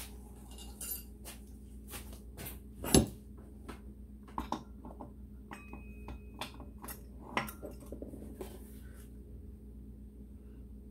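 Metal tools and parts clinking and knocking on a workbench: a series of separate clinks, one louder knock about 3 seconds in, and a short metallic ring a little past the middle.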